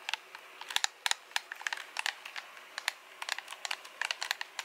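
Buttons and sticks of an Xbox Elite controller clicked and pressed right up against the microphone in ASMR style: an uneven run of sharp plastic clicks, several a second.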